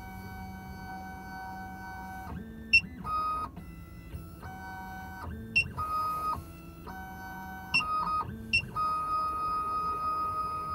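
SEC-E9 automatic key-cutting machine driving its heads with stepper motors: a steady electric whine that stops and starts again at a different pitch every second or two, with four sharp clicks, and one longer steady run near the end.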